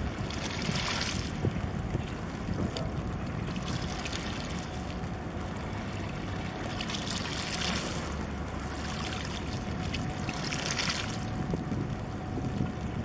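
Wind buffeting the microphone as a steady low rumble, with harbour water splashing in brief hissing surges three times.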